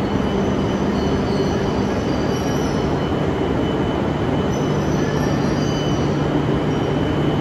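E5 series Shinkansen train rolling slowly along the platform as it brakes to a stop: a steady rumble with a low motor hum that drops a little in pitch about halfway through, and faint high wheel squeals.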